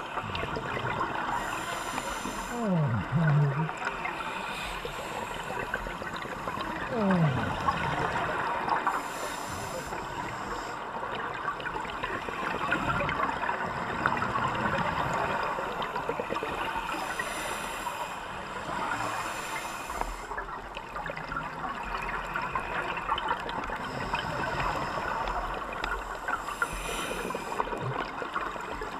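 Underwater sound of scuba divers breathing through regulators: a steady crackle of exhaled bubbles gurgling, with short hissing breaths every several seconds. Two louder low, falling rumbles come about three and seven seconds in.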